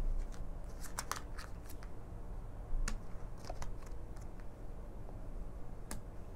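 Tarot cards being handled and laid down one by one on a cloth-covered table: a handful of light card clicks and slides, scattered through.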